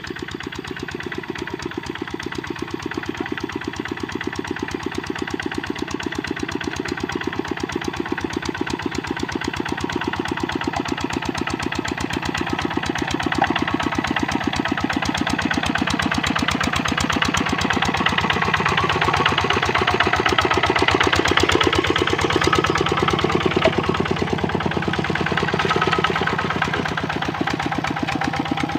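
Kubota RD65 single-cylinder diesel engine of a hand tractor running with a rapid, even knock. It grows gradually louder toward the later part and dips and rises in pitch for a few seconds past the middle.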